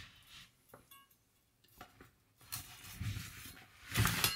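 Metal kitchen utensils being handled as a knife is got out: a light ringing clink about a second in, then soft scraping and a louder knock near the end.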